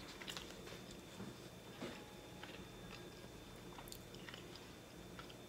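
Faint, scattered small clicks and mouth sounds as a plastic drink bottle is twisted open and sipped from.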